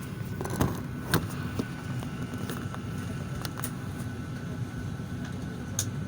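Steady low hum of an airliner cabin's ventilation at the gate, with a faint high steady tone and scattered sharp clicks and knocks, the loudest about a second in.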